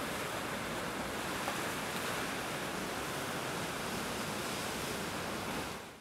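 Steady rush of sea surf, fading out near the end.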